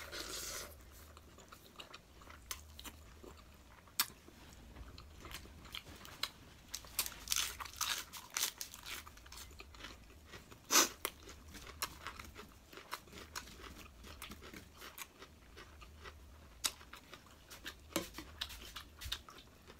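A person chewing mouthfuls of spicy noodles close to the microphone: a steady run of short mouth clicks and smacks, the loudest about eleven seconds in.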